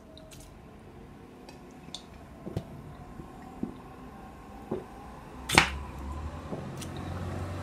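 A man drinking water from a plastic bottle: faint swallowing clicks every second or so, then one sharp, louder click about five and a half seconds in as the bottle comes down. A low hum sets in near the end.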